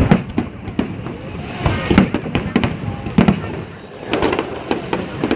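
Fireworks going off in quick, irregular succession: sharp bangs and cracks several times a second over a continuous rumble of shell bursts.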